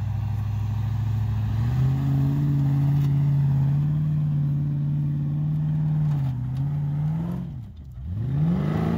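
Engine of a modified off-road trials 4x4 working under load as it climbs a slope. Its revs step up about two seconds in and hold steady, dip briefly, then drop away and climb sharply again near the end.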